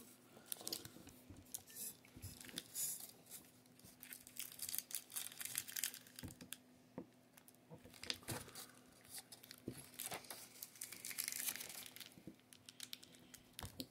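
Faint, scattered rustling, crinkling and small clicks as a thin blade cuts a Cadbury Fudge bar into pieces on a paper towel, the paper rustling under the blade.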